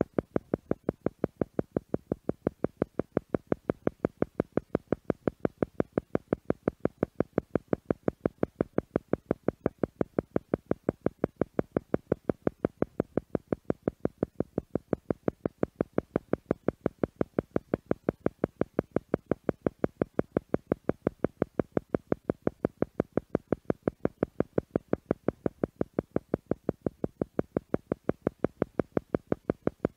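Theta-frequency meditation tone: an isochronic tone pulsing on and off evenly at about five pulses a second, without a break.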